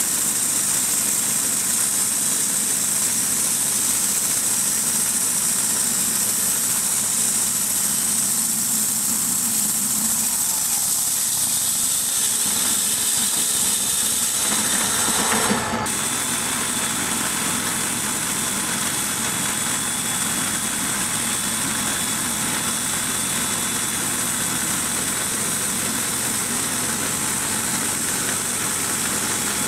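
Portable bandsaw mill running, its gasoline engine and band blade sawing through a white ash log in a steady drone and hiss. About halfway through the sound drops suddenly in level, then the sawing carries on steady.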